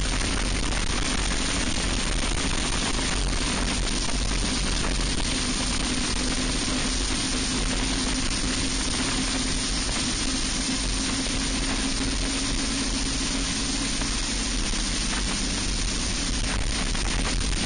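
Onboard sound of a racing kart's Briggs & Stratton Animal four-stroke engine held at high revs. A steady engine note sits under heavy wind and road noise, and the pitch eases slightly near the end.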